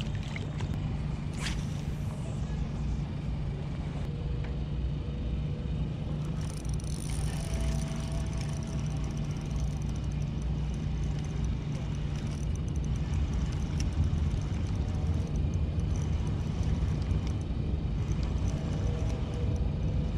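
Steady low engine rumble, with a brief splash-like stroke about a second and a half in.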